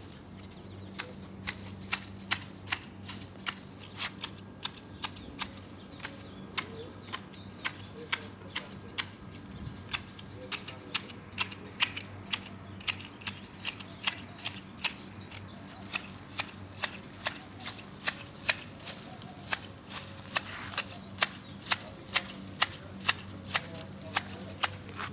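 Hand garden shears snipping twigs and leaves as a tree is trimmed into shape, a sharp click at about two to three cuts a second, with a low steady hum underneath.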